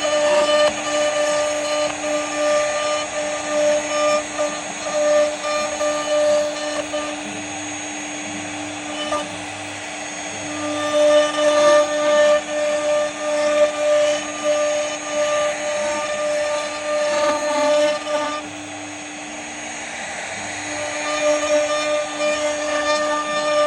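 CNC router spindle running with a steady high whine while its bit cuts into wood. The cutting noise rises and falls as the tool moves and eases off for a few seconds about a third of the way in and again about three quarters through.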